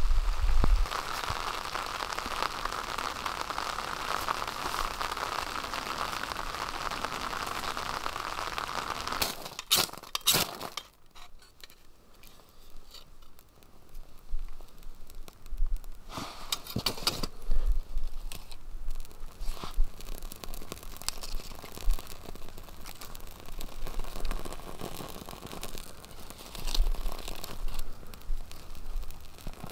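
Steady rain on a tarp shelter for the first nine seconds or so. Then a few sharp scrapes of a match being struck, followed by small crackles and rustling as dry leaves and bark tinder on split wood catch fire.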